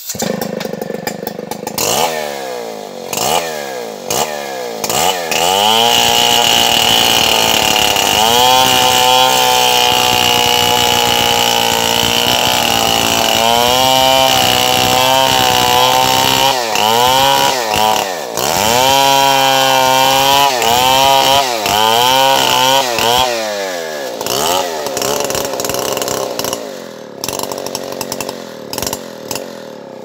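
Stihl MS 070 two-stroke chainsaw cutting through a kapok log. The engine comes in suddenly at full throttle, and its pitch sags and recovers again and again as the chain loads up in the wood and frees. Near the end it drops back to a lower, uneven run.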